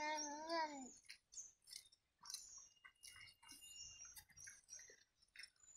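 Faint chirping and twittering of small birds, with a short wavering whining cry in the first second and scattered light clicks and taps.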